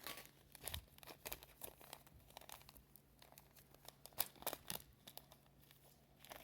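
Faint, irregular crackles and small sticky pops from soft, clay-heavy slime being kneaded and folded by hand, with a few louder clicks.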